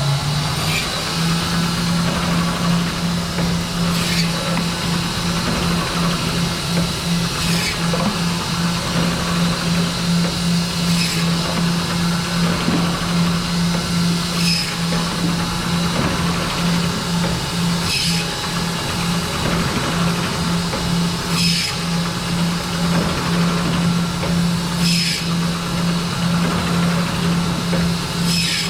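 Automatic meat band saw running as it cuts beef short rib: a steady motor hum, with a short, higher-pitched cutting sound that recurs about every three and a half seconds.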